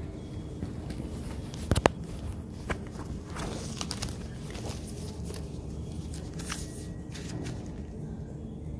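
Footsteps along a carpeted hallway over a steady low rumble, with two sharp clicks close together about two seconds in. Later come brief rustles as a paper key-card folder is handled.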